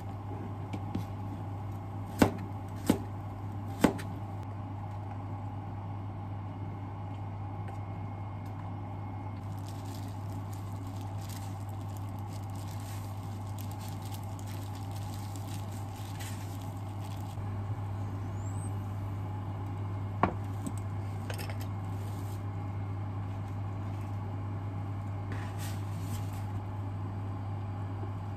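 Kitchen knife cutting cooked carrot on a cutting board, with three sharp knocks of the blade on the board a couple of seconds in and another single knock much later. Quieter handling sounds of food prep run over a steady low hum.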